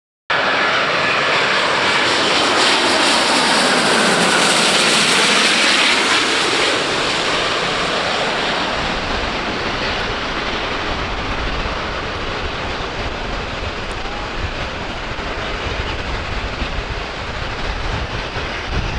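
Twin-engine jet airliner passing low overhead on final approach, engine noise loudest a few seconds in. It then fades to a lower, steady rumble as the plane lands on the runway.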